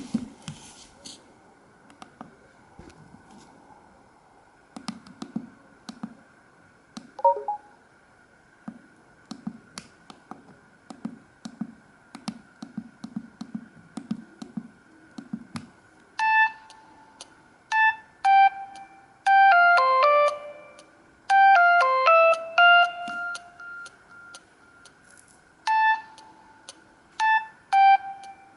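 Samsung SGH-D780 mobile phone: scattered clicks and soft low thumps, then a little past halfway one of its original ringtones starts through the phone's speaker, a synthesized melody of short beeping notes with quick falling runs.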